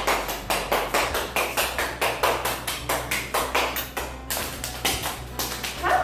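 Hands clapping in a fast, even rhythm, about four claps a second, with a brief pause about four seconds in.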